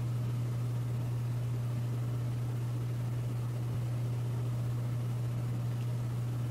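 A steady low hum with a faint hiss above it, unchanging, with no other sound.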